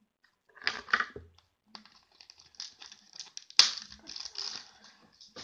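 Paintbrushes and their packaging being handled: a run of small irregular clicks and crinkles, with one sharp click about three and a half seconds in the loudest.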